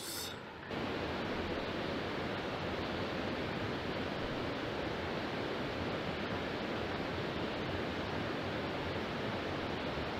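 Steady rushing of flowing river water. It jumps suddenly louder under a second in and then holds even.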